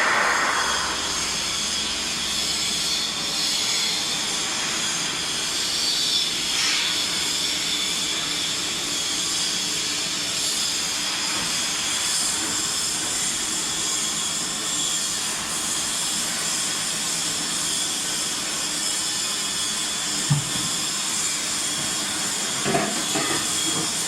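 CNC metal spinning machine running: a steady whirring hiss with a faint high whine, with a few short knocks near the end.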